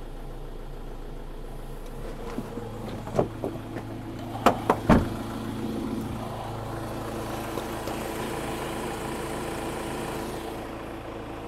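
Freshly rebuilt Mk8 Ford Transit four-cylinder diesel idling steadily on its first run after the rebuild, sounding smooth and healthy. A few sharp knocks stand out above it between about three and five seconds in.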